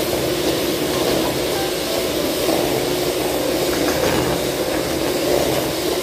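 Electric hand mixer running steadily, its beaters working a mixture in a stainless steel bowl; a continuous motor hum.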